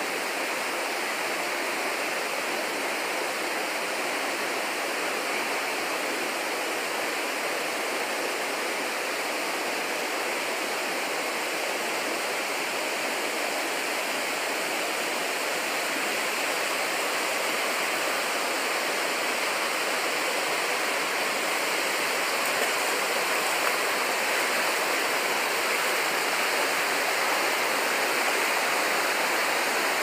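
Steady rushing of a rocky forest stream and waterfall, a constant noise of flowing water that grows slightly louder in the second half.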